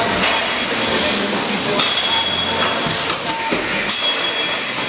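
Hurco VM2 CNC vertical machining center running: a steady mechanical hiss with a few clinks, and from about two seconds in a high-pitched whine.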